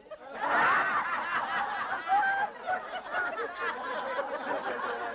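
A room full of people laughing together, breaking out suddenly about half a second in.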